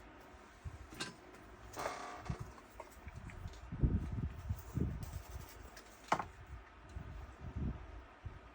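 Faint scattered small clicks and dull bumps from a soldering iron, tweezers and the laptop board being handled while a new charging port is soldered in, with a short hiss about two seconds in.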